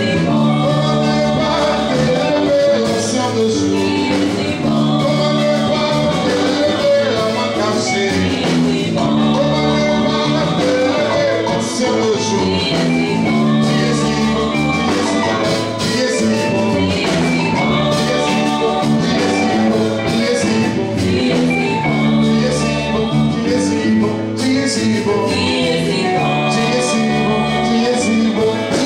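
Music with singing over instrumental accompaniment, chords changing about every two seconds.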